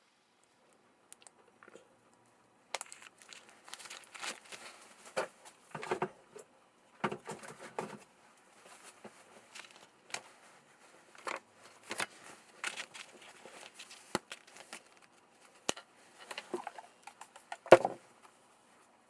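Hands handling small parts at a workbench: irregular clicks, light knocks and crinkling rustles, with one sharper knock near the end.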